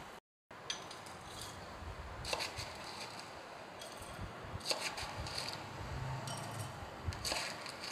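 Metal spoon scooping crushed ice and tipping it into glass tumblers: a few scrapes and clinks of ice and spoon against the glass, spaced a couple of seconds apart.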